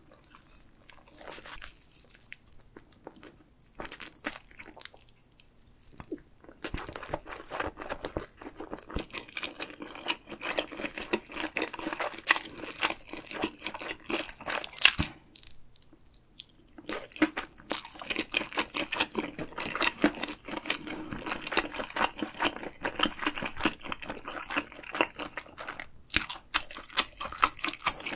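Close-miked chewing of a seaweed-wrapped gimbap roll: a few soft clicks at first, then from about six seconds in a dense run of small crackly chewing clicks. This breaks off briefly around the middle and resumes.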